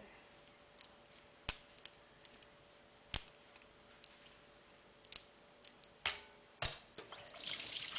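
Scattered sharp clicks and knocks of crab pieces and shell being handled on a wooden cutting board, with a faint steady hum underneath. Running water starts near the end.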